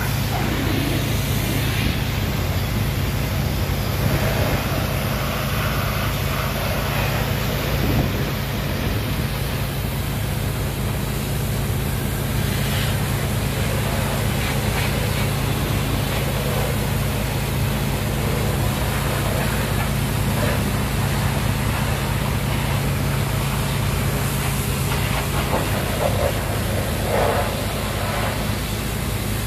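High-pressure water gun spraying down a concrete mixer truck: a steady hiss of water over the continuous hum of a running engine.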